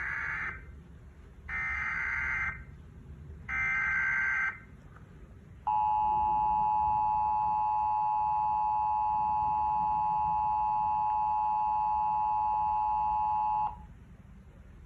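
Emergency Alert System tones: three short bursts of SAME header data screech about a second apart, then the steady two-tone EAS attention signal held for about eight seconds before cutting off abruptly. It opens an alert broadcast for a severe thunderstorm warning.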